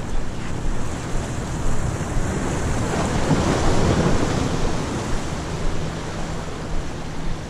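Wind buffeting the microphone over small waves washing against jetty boulders, swelling louder for a second or so about three seconds in.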